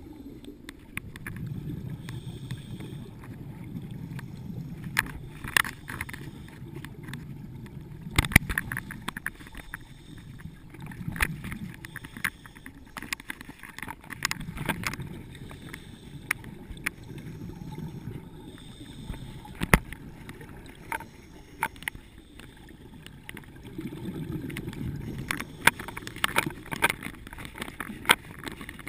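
Scuba diver's breathing heard underwater: exhaled bubbles rumble in swells every few seconds, with scattered sharp clicks and knocks.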